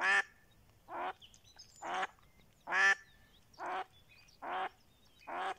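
Live decoy hen mallard quacking in a steady series of seven short quacks, a little under a second apart, calling to lure a drake.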